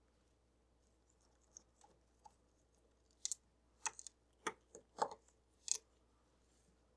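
Sharp clicks and snaps of a small hand tool working against metal parts of an HO-scale model locomotive as a part is pried or pulled off. A few faint ticks come first, then about six sharp clicks in quick succession midway through.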